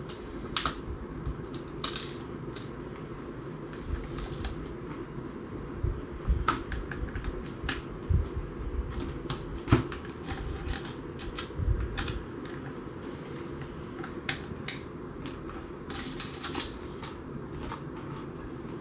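Irregular small clicks and taps of a hex key and small screws being handled against the shell of a SABRE M20 toy foam-dart blaster, with a few soft low thumps of the blaster moved on the work mat.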